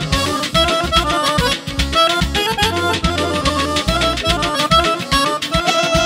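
Garmon (Azerbaijani button accordion) playing a fast, ornamented folk-dance melody in quick short notes, over drum accompaniment.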